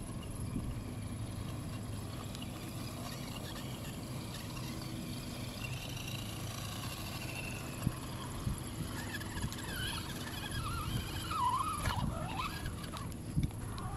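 Radio-controlled scale crawler's electric motor and gears whining as it drives over grass and dirt, the pitch rising and falling with the throttle in the second half, over a steady low rumble. A few sharp knocks come near the end.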